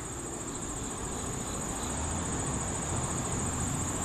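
Steady high-pitched insect trilling, as of crickets, over an even low rumble.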